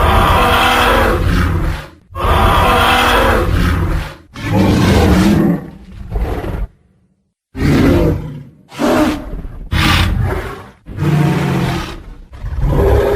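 Tyrannosaurus rex roar sound effects, one loud roar after another, each lasting about one to two seconds, with a brief silence about seven seconds in.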